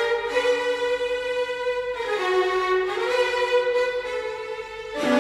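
Instrumental music: bowed strings led by a violin, playing long held notes that change pitch every second or two.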